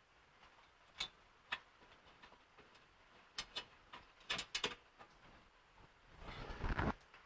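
Scattered sharp clicks of bolts and mounting hardware being handled and fitted, about eight over the first five seconds, then a longer, louder clattering scrape near the end.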